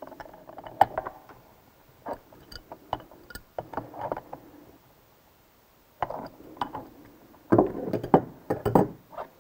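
Steel wrench and pulley holding tool clicking and clinking on the nut of an RS800 CVT transaxle's driven pulley shaft as the nut is tightened to torque. The clicks come in clusters, with a pause in the middle and a louder clatter of metal near the end.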